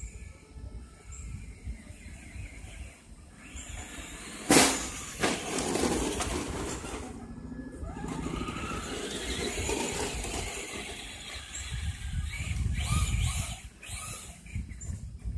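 Traxxas Slash electric RC truck driving on a dirt track, its motor whining, with a sharp knock about four and a half seconds in and a low rumble underneath.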